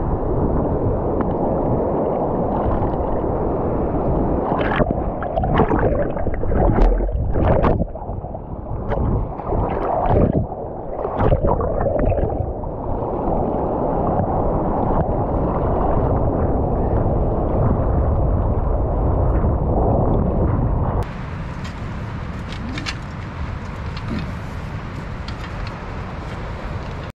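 Muffled sloshing and rumbling of sea water around a waterproofed action camera held in the surf, with scattered knocks as it is handled and rubbed against clothing. About 21 seconds in it changes to a quieter, clearer outdoor wash of wind and distant surf.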